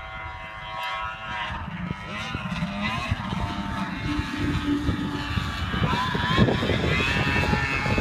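Old snowmobile engine running at speed across the ice, its whine sliding up and down in pitch and growing louder about six seconds in.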